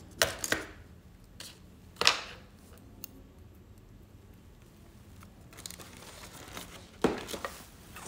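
Small handling noises of tweezers and a thin nail-art slider sticker sheet on a tabletop. There are a few sharp clicks and crinkles, the loudest about two seconds in and another about seven seconds in, with soft rustling in between.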